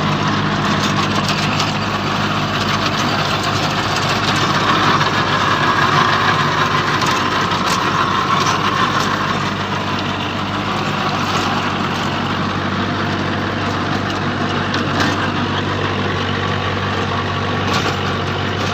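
Tractor engine running steadily while pulling a rotavator through the soil.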